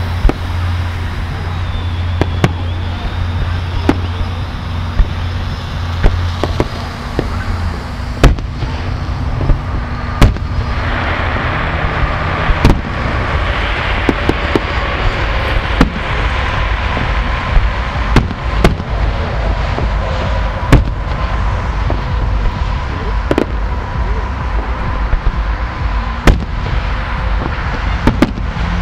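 Fireworks display: sharp bangs of bursting shells every one to three seconds over a steady rushing background, which thickens for a few seconds about ten seconds in.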